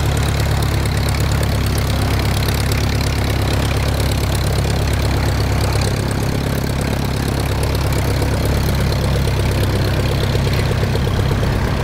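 A vintage biplane's piston engine and propeller running steadily at low power while the plane taxis, a steady low engine note.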